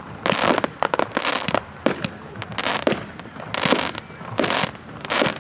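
Fireworks going off in a display: a steady series of bangs and crackling bursts, about one a second.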